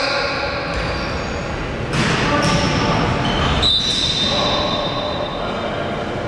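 Indoor basketball game: noise of play and voices echoing in a gym, with a long, steady, high-pitched squeal a little past the middle.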